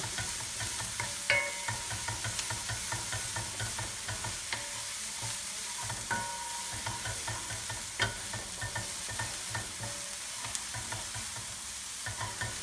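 Chicken, sauce and noodles sizzling in a hot wok as they are stir-fried, with a steady hiss and frequent short clinks and scrapes of the utensil against the wok, some ringing briefly.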